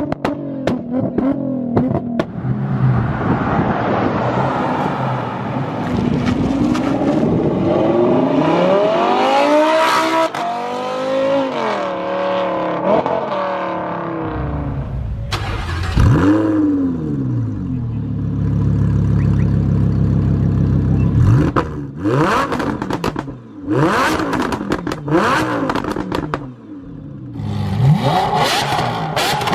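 Supercar engines revving hard, their pitch climbing and dropping through several bursts of acceleration, with a steadier low engine drone in the middle. A run of sharp exhaust pops and cracks comes near the end.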